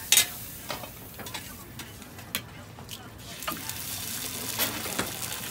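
Food sizzling on a hot flat steel griddle, with sharp clicks and scrapes of a metal scraper against the plate, the loudest right at the start. About three seconds in, the sizzle grows louder as an egg fries in a rectangular metal egg ring.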